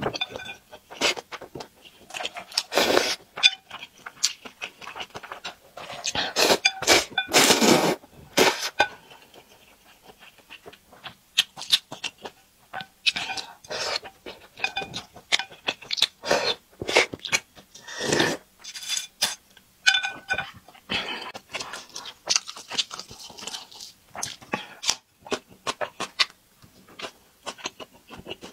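Close-miked eating: several long slurps of hot-and-sour noodles, with wet chewing and lip smacks between them.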